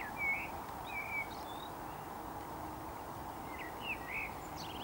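Small birds chirping in short, scattered calls, a cluster in the first second and a half, a pause, then more near the end, over a steady background noise.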